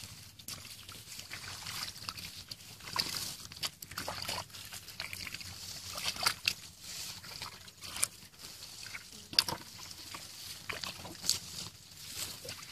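Hands sloshing and splashing in shallow muddy water, with irregular wet splashes and squelches.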